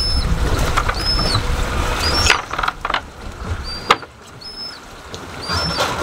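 Short high-pitched squeaks from the seabirds crowding the boat, repeating about once a second. Under them is a low rumble of wind and water that drops away about a third of the way in, with a couple of sharp clicks in the middle.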